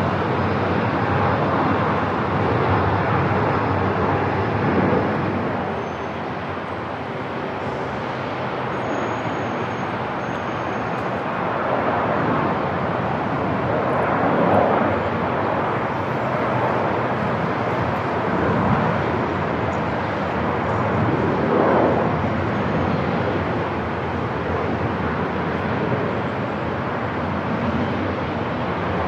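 Airport ambience: a steady, dense roar of noise with a few slow swells.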